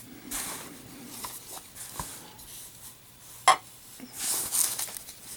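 Handling noise from a boxed lighter's packaging: soft rustling and sliding, a few light clicks, and one sharper knock about three and a half seconds in.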